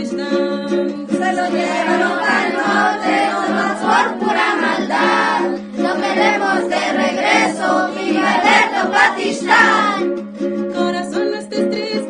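Background music: a song with singing over a plucked string accompaniment. The singing comes in about a second in and stops near ten seconds, leaving the instrument playing.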